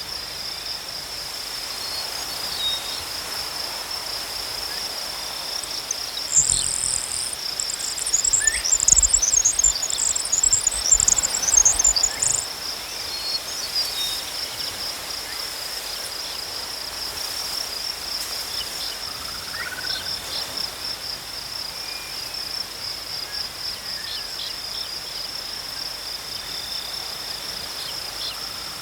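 Crickets chirping in a steady, rapid pulsing trill. About six seconds in, a louder, higher-pitched rapid chirping joins for about six seconds, with a low rumble under it.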